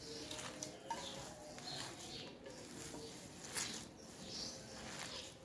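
A hand working a crumbly shredded-chicken kabab mixture and chopped coriander in a large steel bowl: irregular soft rustling and squelching handfuls.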